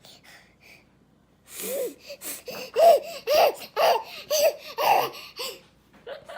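A baby laughing in a run of short bursts, starting about a second and a half in.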